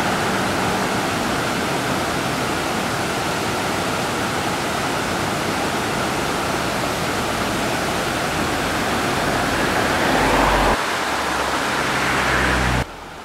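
River water rushing steadily over a low plank-faced weir. Near the end the rush gives way to a lower rumble, which cuts off suddenly shortly before the end.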